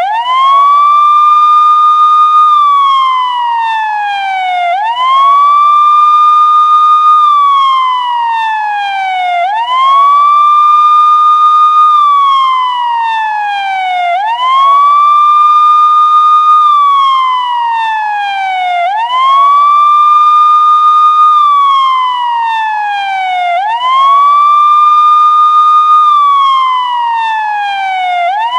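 Police car siren sounding a steady wail. Each cycle rises quickly, holds a high note for a moment, then slides slowly down before rising again, repeating about every four to five seconds.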